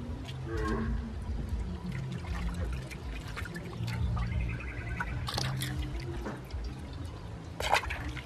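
Water pouring and trickling into a metal basin holding live frogs, with a sharp splash near the end.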